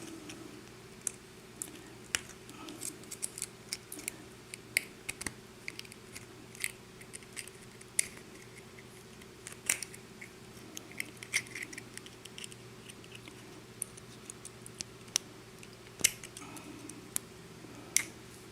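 Small irregular metal clicks and scrapes of a tool working at the retaining clip on the back of a lock cylinder, trying to pry the clip off.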